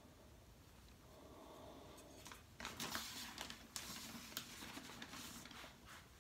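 Rustling and scraping of a metal scoop digging out more powdered glaze material, starting about two and a half seconds in after a quiet stretch.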